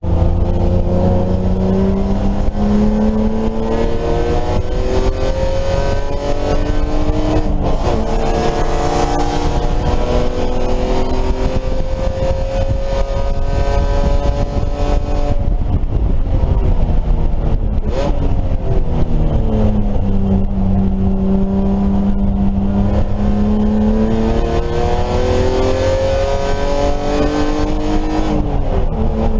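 BMW E30 race car's engine under hard acceleration. Its pitch climbs through a gear, drops sharply at an upshift about seven seconds in, and climbs again. It falls away as the car brakes and downshifts around the middle, then pulls up through the revs again, with another shift near the end. A heavy low rumble of wind and road noise runs underneath.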